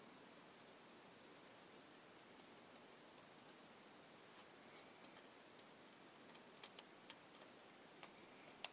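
Small scissors making faint, irregular snips as they cut through green cardstock, with a sharper pair of clicks near the end.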